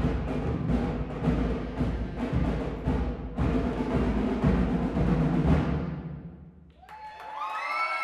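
School concert band playing, with brass, saxophones, sousaphone and a steady drum beat, until the piece ends and dies away about six and a half seconds in. Right after, audience voices break out in cheers.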